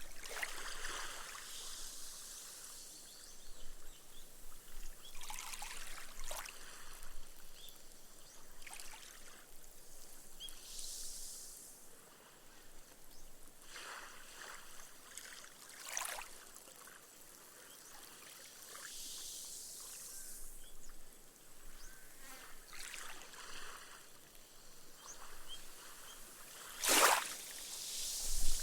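Small, gentle waves washing up a sandy beach, each wash hissing and fizzing as the foam sinks into the sand. The washes come every few seconds, with a louder splash near the end.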